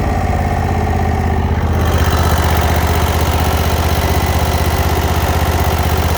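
Kohler Command Pro 23 hp V-twin engine of a commercial zero-turn riding mower running steadily at idle after being throttled back. About two seconds in the sound grows slightly louder and brighter, with more hiss on top.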